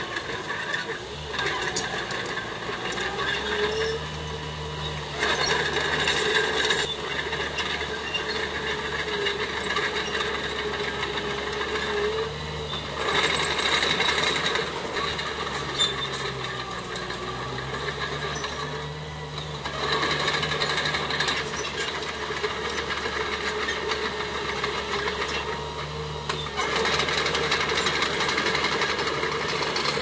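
Small crawler bulldozer working: its diesel engine runs steadily, the note rising and falling several times with the load, over a constant clatter and rattle from the steel tracks and blade.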